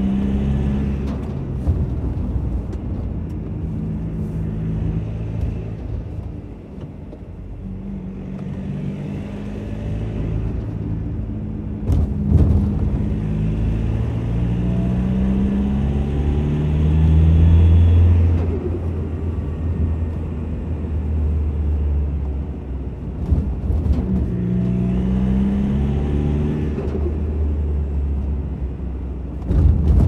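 Ford tipper truck's turbocharged engine pulling up through the gears, heard from inside the cab: the engine note climbs with each gear and then drops. Each time it rises, a turbo hiss comes in, with the turbo flutter when the throttle lifts.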